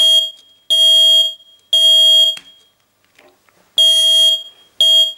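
Stripped-down smoke alarm circuits with bare piezo horns, sounding together: loud, high-pitched beeps of about half a second, three a second apart, a pause, then two more, the three-beep pattern of a smoke alarm.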